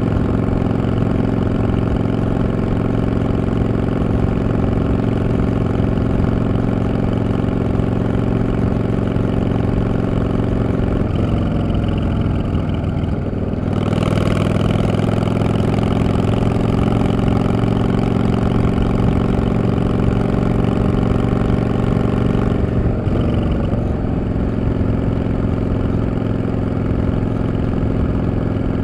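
Yamaha V-Star 650 (XVS650) air-cooled V-twin motorcycle engine running steadily. A little before halfway its note dips and wavers, then comes back louder and brighter. It changes pitch briefly again about three quarters of the way through.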